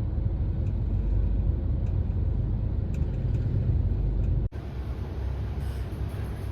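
Street ambience dominated by a low, steady traffic rumble. It cuts abruptly to a different ambience about four and a half seconds in.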